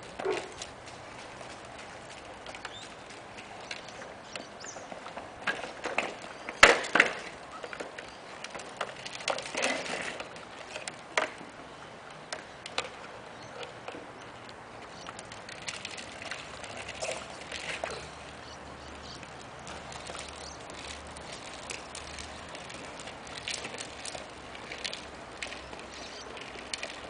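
Child's plastic tricycle with hard plastic wheels rolling over a wet concrete slab: scattered rattles and knocks over a steady background hiss, the loudest a little over six seconds in.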